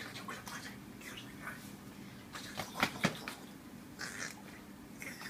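A baby making short squeaky vocal sounds and breaths, with two sharp clicks about three seconds in.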